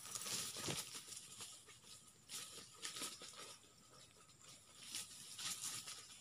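Irregular rustling and crackling in dry leaves and undergrowth, a scatter of short crackles with a faint steady tone underneath.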